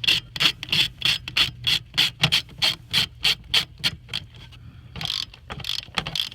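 Hand ratchet clicking in a quick even run, about three or four strokes a second, with a pause of about a second partway through, as it turns the puller that draws the old injector cup out of a Ford 6.0 diesel cylinder head.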